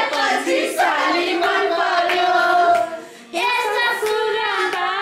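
Singing: a melody of long held notes, with hands clapping along. The singing breaks off briefly about three seconds in.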